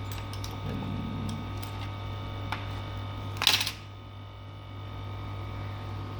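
Small clicks and taps of tools prying apart a Samsung Galaxy J7 smartphone, with one louder brief scraping burst about three and a half seconds in, over a steady electrical hum.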